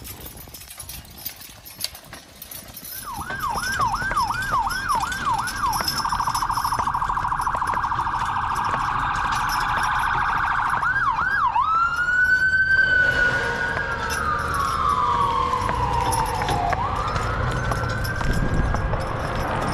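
Emergency vehicle siren: starting about three seconds in with a fast yelp, changing to a rapid warble, then after a few more yelps a slow wail that rises, falls over several seconds and rises again.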